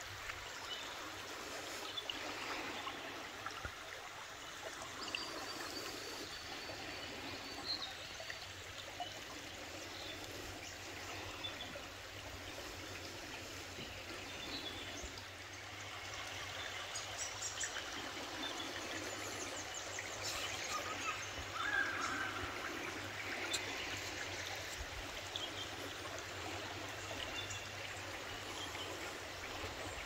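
River water running steadily, a continuous rushing flow.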